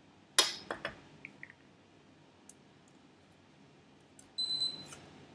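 A few sharp clicks and taps from nail tools and a nail tip being handled, the loudest about half a second in. Near the end comes a short, high electronic beep: the gel nail curing lamp signalling that its 30-second cure is over.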